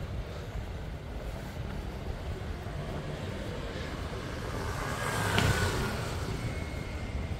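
A road vehicle passes close by, its noise building to a peak about five seconds in and then fading, over a steady low rumble of traffic.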